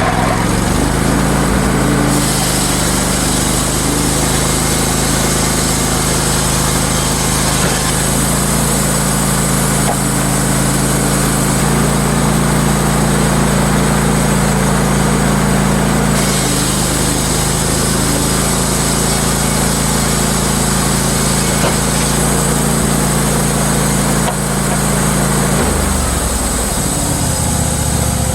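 Wood-Mizer LT15 Wide sawmill running steadily under its small engine while its band blade cuts through a timber; the engine's pitch drops near the end.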